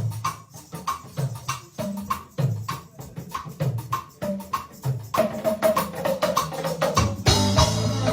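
Live band playing a dancehall riddim, opening on a drum-kit groove with sharp, wood-block-like clicks and kick drum. More instruments fill in about five seconds in, and the full band with bass comes in near the end, louder.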